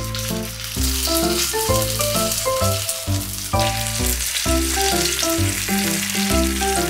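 Oil sizzling in a frying pan as a panful of wrapped rolls fries, under background music with a steady beat. The sizzle stops at the end.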